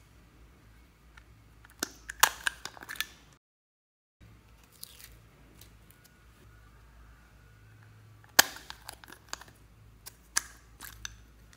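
Small plastic food-storage containers handled and their clip-on lids worked open: sharp plastic clicks and crackles in two clusters, about two seconds in and again near the end.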